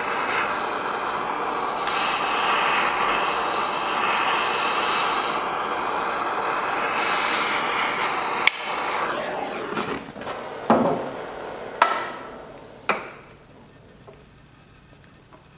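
A heat gun blowing steadily as it warms the engine's front cover. It stops about nine seconds in, followed by four sharp knocks that ring briefly, spaced about a second apart.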